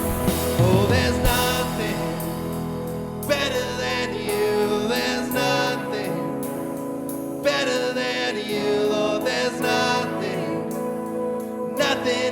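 Live worship band playing a slow song with sustained chords, a voice singing over it.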